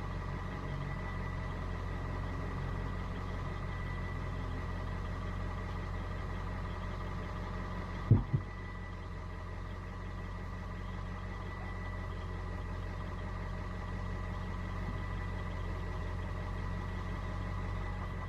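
A steady machine hum, even in level throughout, with two sharp knocks in quick succession about eight seconds in.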